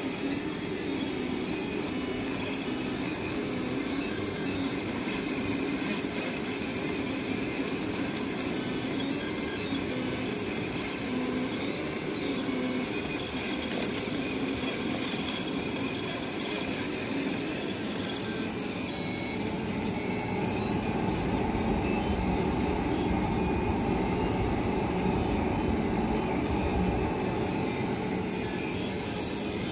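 Tevo Black Widow 3D printer printing: its stepper motors whine, the pitch rising and falling as the print head moves, over the steady hum of the printer's fans. In the second half a high whine swells and fades about once a second.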